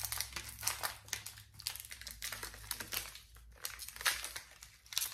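Thin plastic snack wrapper crinkling as it is handled and worked open, in irregular bursts of crackle.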